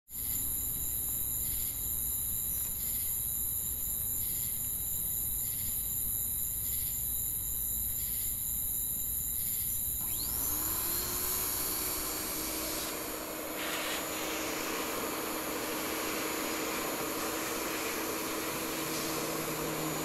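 Night insects chirping in a steady high trill with faint pulses about once a second. About halfway in, a machine starts up with a whine that rises in pitch, then settles into a steady drone over the insects.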